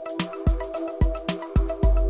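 Background music with a steady beat: drum hits about twice a second under sustained electronic tones.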